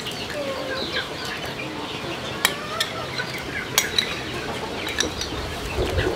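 Metal spoon clinking and scraping against a bowl and a cooking pot as jelly powder is tipped into the pot and stirred, in a few sharp clicks. Chickens cluck and birds call in the background.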